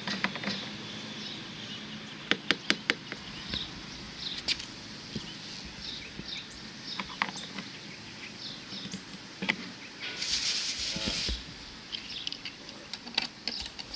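Small birds chirping now and then, with a few sharp clicks a little over two seconds in and a brief rustle about ten seconds in.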